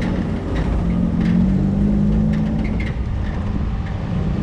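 Car engine running at low revs while the car drives slowly, heard close from the bonnet. Its steady hum rises a little about a second in and then holds over a low rumble.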